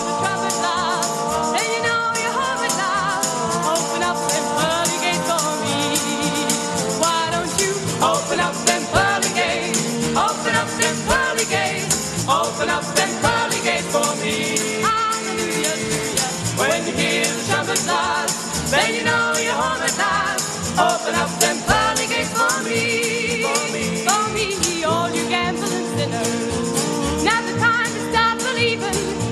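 Live folk-gospel band: a female lead voice singing over strummed acoustic guitars, a 12-string guitar and a plucked double bass, with a shaken tambourine.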